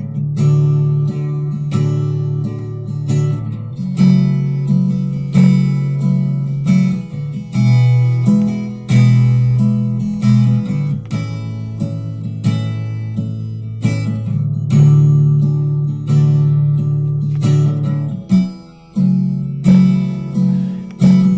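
Recorded acoustic guitar strumming chords in a steady rhythm, with strong strokes about once a second and the chords changing as it goes: a bare guide track with no vocals.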